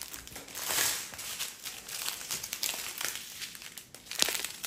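Small plastic bags of diamond-painting drills crinkling as they are handled and sorted, with one louder, sharper crinkle near the end.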